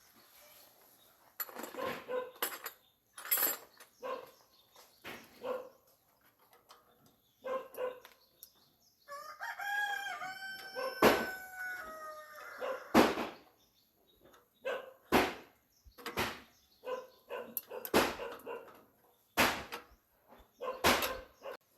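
A rooster crows once near the middle: one call of about three seconds that holds its pitch and then drops away. Around it comes a run of sharp knocks and clanks, the loudest sounds, spaced every second or so.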